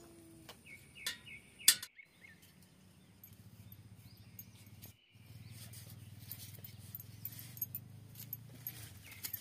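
Birds chirping faintly, with one sharp knock about a second and a half in. Later a low steady hum sits under soft clicks of green beans being sliced on a curved boti blade.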